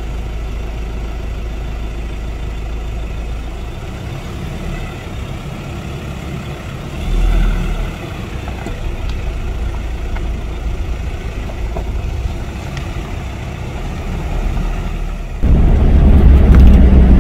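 Pickup camper's engine idling steadily. About fifteen seconds in it gives way to the much louder running noise of the pickup driving along a gravel track, heard from inside the cab.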